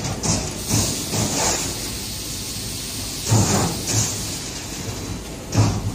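CNC turret punch press punching sheet metal: quick runs of sharp strokes, each a thud with a hissy crack, with short pauses between the runs as the sheet is moved to the next position, over a steady machine hum.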